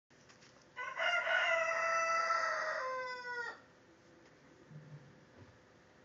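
A rooster crowing once: one loud call of nearly three seconds that drops in pitch at the end.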